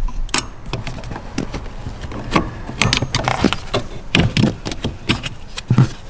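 Irregular metallic clicks, scrapes and knocks of a screwdriver working the circlip off the top pivot pin of a BMW E30's plastic throttle pedal, with clacks of the pedal being worked loose and lifted free.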